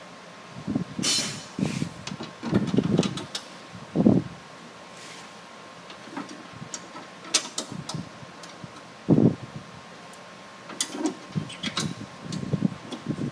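Irregular knocks, clinks and scrapes of metal parts being handled as a walk-behind trencher's belt housing and its bolts are fitted back together by hand.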